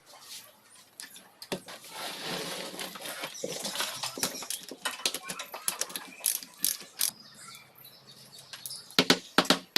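Hand work on metal engine parts: irregular scraping and rustling with a run of clicks and clinks, and several loud sharp clicks near the end.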